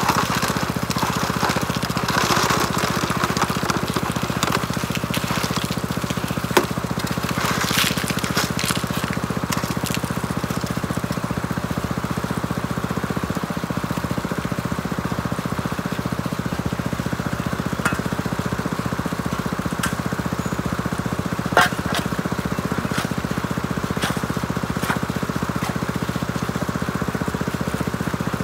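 Small engine of a high banker's water pump running steadily, with water and gravel rattling through the sluice, heavier in the first several seconds. A few sharp knocks cut through, the loudest a little after the middle.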